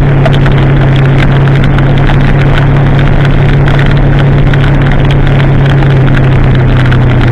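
2016 Kawasaki ZX-10R's inline-four engine, de-catted and fitted with an aftermarket exhaust, droning at a steady cruise, with a thick hiss of wind and rain spray over the microphone.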